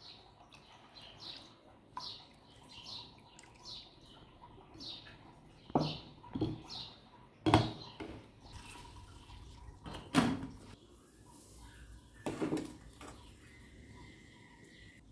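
A small bird chirping over and over, short falling notes about twice a second, through the first half. Over it come several sharp clanks of kitchenware on a wooden table. The loudest, about halfway through, is a glass lid being set on a metal cooking pot.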